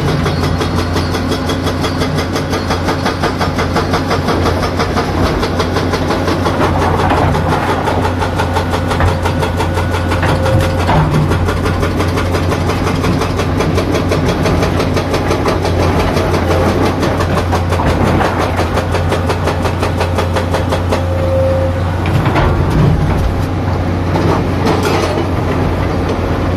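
Komatsu PC200-7 excavator's six-cylinder diesel engine running steadily, with a dense low firing rhythm and a few faint clanks.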